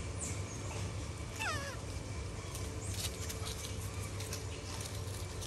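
A baby macaque gives a short call that slides down in pitch, about one and a half seconds in, with a fainter high squeak just before it. A few faint clicks follow over a steady low hum.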